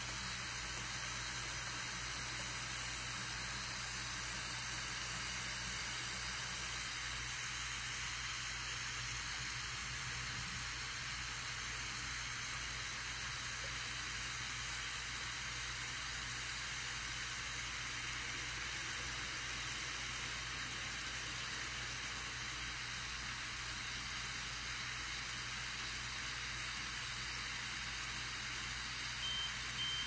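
Water from a pull-down kitchen sprayer pouring steadily into a countertop dishwasher's built-in water tank, a constant splashing hiss. Near the end the dishwasher beeps, the signal that the tank holds enough water.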